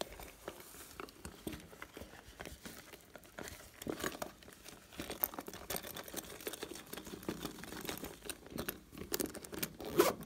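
Close-up crackling and light pattering from a soft zippered toy pouch being squeezed and handled over a bowl of slime, the crackles growing busier near the end.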